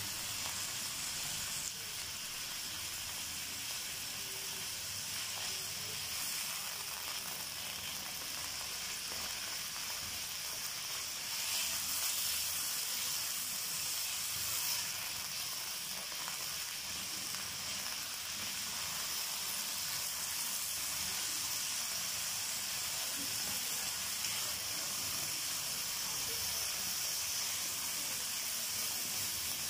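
Boneless chicken strips sizzling steadily in hot oil in a wok as they fry.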